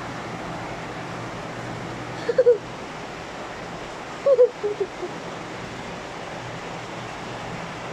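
Steady rushing water noise of heavy rain and floodwater, with two brief voice sounds about two and four seconds in.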